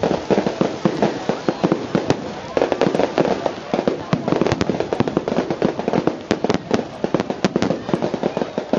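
A string of firecrackers going off in a rapid, uneven run of sharp bangs, with a brief lull about two seconds in.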